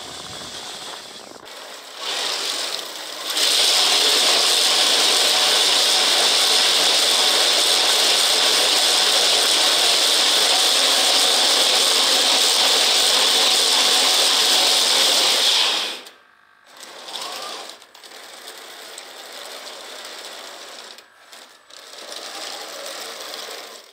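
Electric motor and plastic gearing of a 3D-printed RC tracked dump machine whirring loudly and steadily for about twelve seconds, then cutting off; quieter, on-and-off whirring follows.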